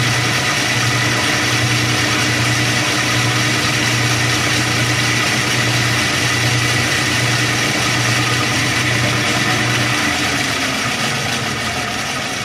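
Homemade bandsaw running steadily, a motor hum with the whir of the wheels and blade, the blade tracking properly on the repaired upper wheel. About ten seconds in, the hum stops and the sound falls in pitch as the saw winds down.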